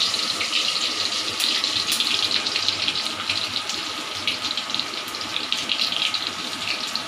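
Oil sizzling steadily in a wok as urad dal, mustard seeds and crushed garlic fry, with scattered sharp pops.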